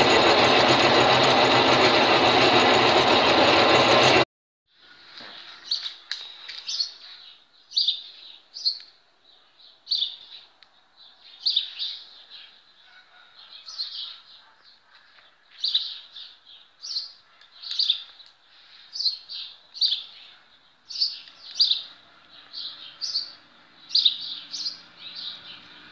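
A metal lathe runs loudly and steadily while a tool cuts a small spinning part, then cuts off abruptly about four seconds in. After that, a small bird chirps over and over, short high calls about one or two a second.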